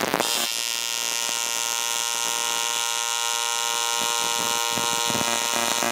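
AC TIG welding arc on aluminum, a steady electric buzz that begins a moment in and holds even. The pass is run with too little heat, so the puddle bridges over the root without penetrating.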